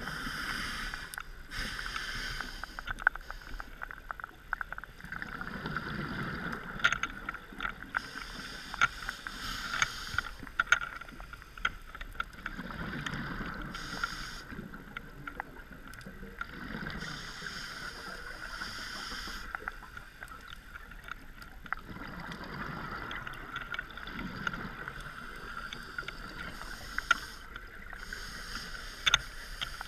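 Scuba diver breathing through a regulator underwater: a hiss on each inhale alternating with a low rumble of exhaled bubbles, a few slow breaths in all, with scattered sharp clicks.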